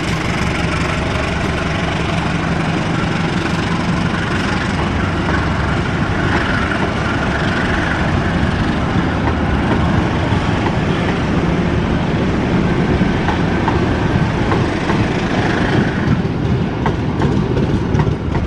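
A passenger train's stainless-steel coaches rolling past on the rails, a steady loud rumble with faint wheel clicks over rail joints in the latter half.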